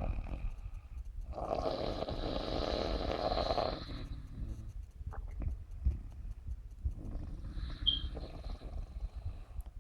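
Snoring: one long snore about a second in, then a softer one near the end carrying a brief high whistle through the nose.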